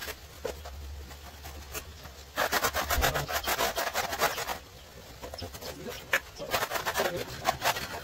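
A hand tool scraping rapidly back and forth on a hard tiled or mortared floor surface, in two spells: one about two seconds long and a shorter one later, with a single sharp knock between them.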